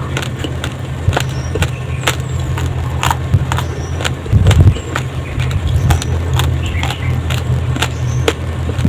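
Raw glutinous rice grains crunched between the teeth, close-miked: a run of sharp, irregular crunches and clicks over a steady low rumble.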